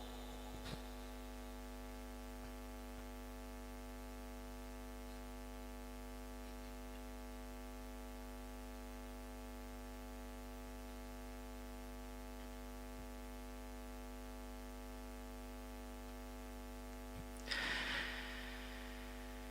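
Steady electrical mains hum, a constant buzz with many even overtones, with a brief faint noise near the end.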